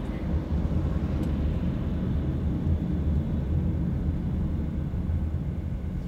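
Steady low rumble of a car driving on an expressway, tyre and engine noise heard from inside the cabin.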